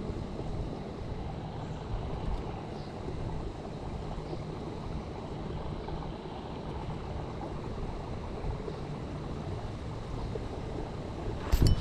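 Steady wind buffeting the microphone, with a sudden loud thump near the end.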